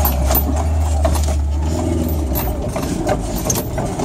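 Off-road 4x4's engine running low and steady, heard from inside the cabin, with the body and fittings rattling and knocking over rough track. The engine hum drops away a little past halfway.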